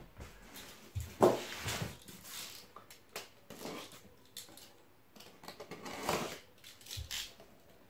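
Cardboard box being handled and its packing tape slit with a utility knife: irregular scrapes, rustles and knocks, the loudest about a second in.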